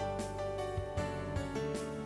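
Instrumental background music: gentle melodic notes with a soft beat.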